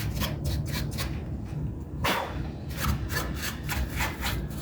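A brush's bristles scrubbing dust off a computer motherboard around the CPU socket, in quick repeated strokes, pausing briefly a little after a second in and then going on faster.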